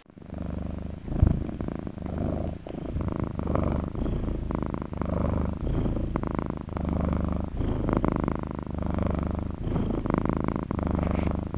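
Domestic cat purring, the purr swelling and fading in even cycles about once a second with its breathing, with a short bump about a second in.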